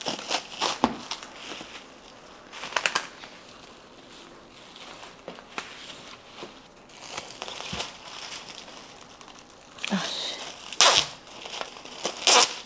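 Clear plastic cling wrap crinkling as it is peeled off a tray of ground meat, in short bursts. Near the end, plastic bags rustle and crinkle more loudly as they are handled.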